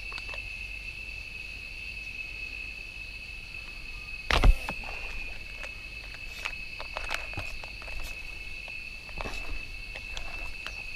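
Steady high-pitched drone of insects, with one loud sharp snap about four seconds in and a few faint clicks and rustles.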